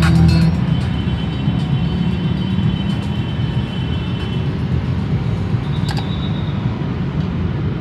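Steady outdoor city ambience: a low, continuous rumble of road traffic.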